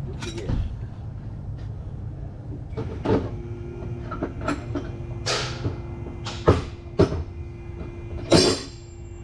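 Hand tools being handled and set down: a series of about six sharp clanks and knocks over a low background hum, the last one the loudest.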